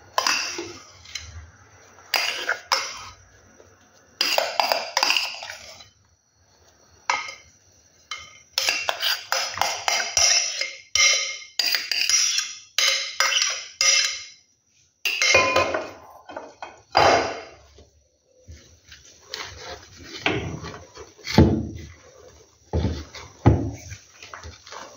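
Spatula scraping beaten egg whites out of a glass bowl, in repeated scrapes and clinks against the glass, then folding them into cake batter in a mixing bowl with softer, duller strokes in the second half.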